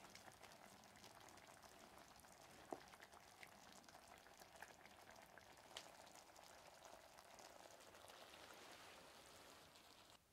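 Faint, steady bubbling and crackling of taro simmering in broth in an earthenware pot over charcoal, with small ticks and one sharp knock about three seconds in. The sound cuts off suddenly near the end.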